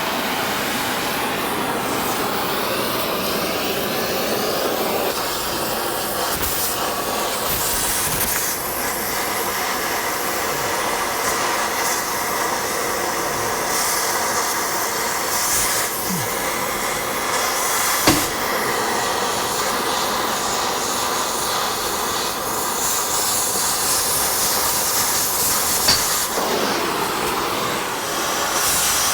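Oxy-fuel cutting torch hissing steadily as it cuts through the leaf-spring U-bolts, with a couple of brief sharp pops along the way.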